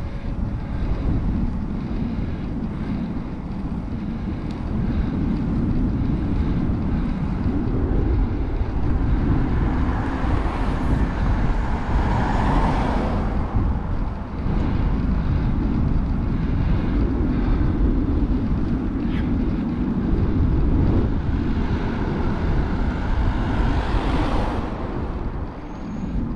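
Steady rumble of wind on the microphone and road noise while riding a bike along a road, with vehicles swelling past about ten seconds in and again a little past twenty seconds.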